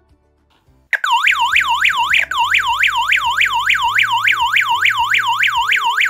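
Siren of a D3D ZX-G12 WiFi/GSM home security alarm going off about a second in, a loud wail sweeping up and down about four times a second. It is the intruder alarm set off by opening the door/window contact sensor while the system is armed.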